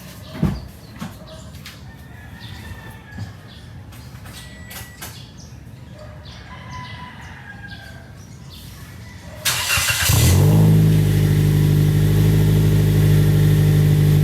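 Birds chirping and a few light clicks, then about nine and a half seconds in a car engine is cranked, catches, and settles into a loud, steady idle. The exhaust note comes through stainless spiral piping that replaces the resonator and catalytic converter.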